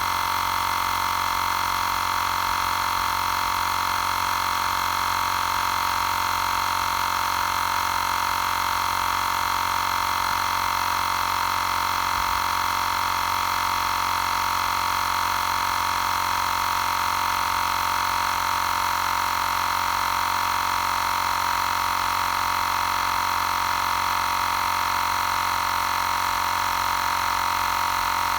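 Xiaomi Portable Electric Air Compressor 2 running steadily while inflating a nearly flat spare tyre: an even, unchanging motor-and-pump drone.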